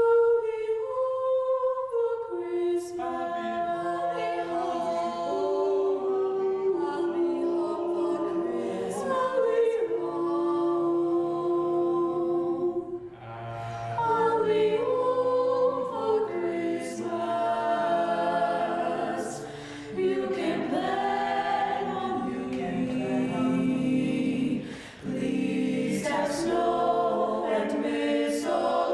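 Choir singing, breaking briefly between phrases three times.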